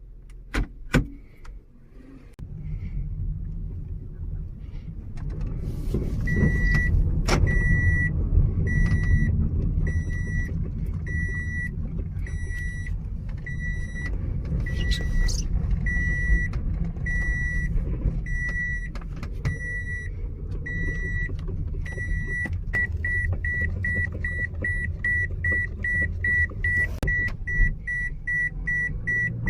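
Car running with a steady low rumble after two sharp clicks, while a warning chime beeps about once a second, quickening to about three beeps a second near the end.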